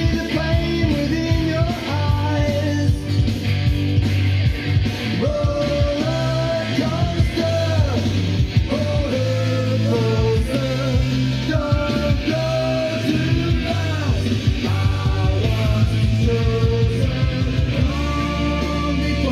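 Rock song with a singer over a steady bass and beat, played back from a vinyl record on a Denon DP-45F turntable with a Shure M97xE cartridge.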